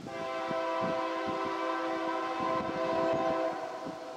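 Diesel locomotive air horn of an approaching freight train, the lead unit a GE AC4400CW, sounding one long multi-note chord that stops about three and a half seconds in. A faint low rumbling lies under it.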